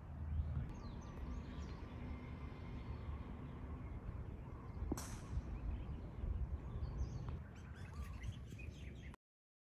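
Wind rumbling on the microphone with birds chirping, and a single sharp click of a golf club striking the ball about five seconds in. The sound cuts off abruptly just before the end.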